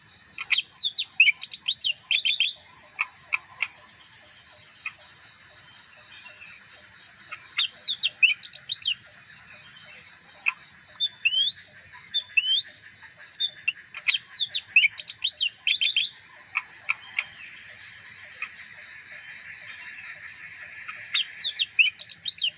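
Caged leafbird singing in repeated bouts of quick, sweeping whistled notes, with short pauses between bouts and a steady high background tone underneath.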